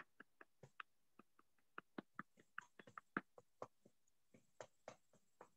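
Faint, irregular light taps, a few a second: fingertips tapping the EFT under-arm point on the side of the chest, below the armpit, through a shirt.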